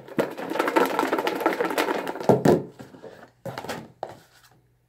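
Paper name slips rattling and sliding inside a plastic food container shaken hard for about two and a half seconds, then a few separate knocks of the plastic tub as it is handled and opened.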